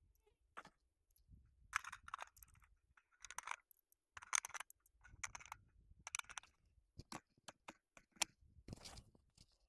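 Loading .308 cartridges into the rifle's magazine and handling the magazine at the rifle: a series of light metallic clicks and scrapes, with one sharper click a little after eight seconds.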